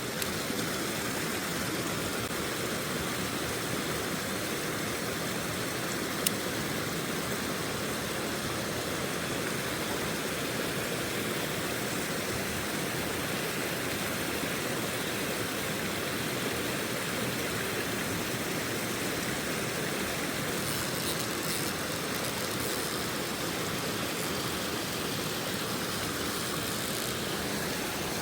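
Mountain stream water rushing steadily, with a single sharp click about six seconds in.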